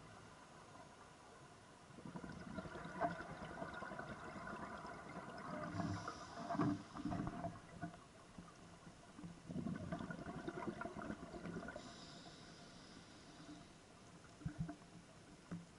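A scuba diver breathing through a regulator underwater: two long bursts of exhaled bubbles gurgling and rushing, the first about two seconds in, each followed by a short hiss of inhalation, with quieter pauses between breaths.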